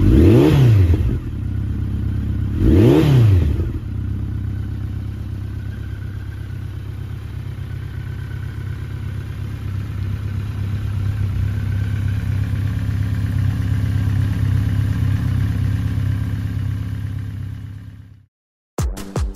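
2019 Honda CB1300 Super Bol d'Or SP's inline-four engine revved twice with quick throttle blips, then idling steadily. It fades out near the end, and electronic music begins.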